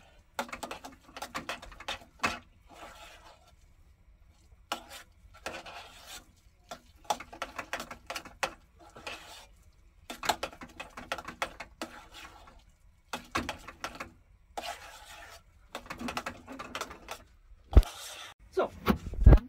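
Mashing boiled potatoes with butter and milk into purée in a stainless steel pot: repeated strokes of the masher, about one a second, with a couple of sharp knocks against the pot near the end.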